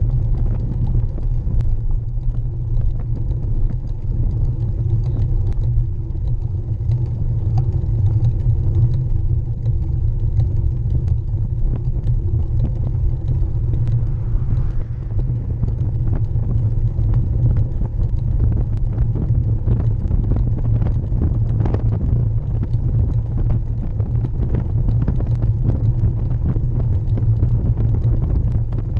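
Road bike's rear tyre rolling over tarmac, a steady low rumble of tyre and road vibration picked up right beside the wheel, with frequent small knocks and rattles from bumps in the road surface.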